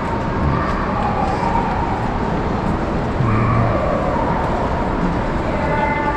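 Steady background noise of a large, busy exhibition hangar, with faint distant voices of other visitors.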